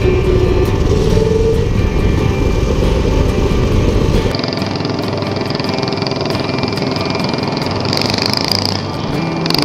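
Small Predator single-cylinder petrol engines running steadily as a drift trike and a mini bike cruise, mixed with background music. The engine sound changes abruptly about four seconds in.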